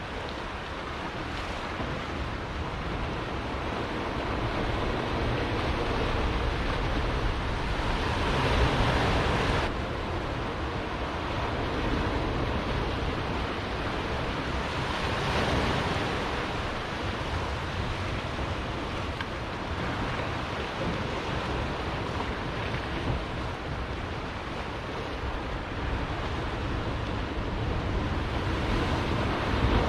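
Ocean surf washing against a rocky shore in rough swells, with wind buffeting the microphone. The wash rises and falls, surging loudest about nine seconds in, where it cuts off sharply, and again around fifteen seconds.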